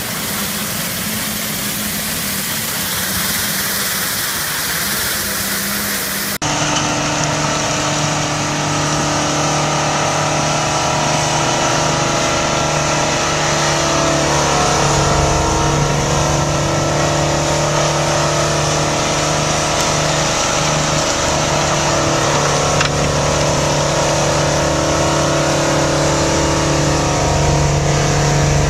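A truck-mounted rotary broom sweeping snow with a steady hiss over its truck's engine. About six seconds in this changes abruptly to a large truck-mounted rotary snowblower's engine running steadily under load as it throws snow.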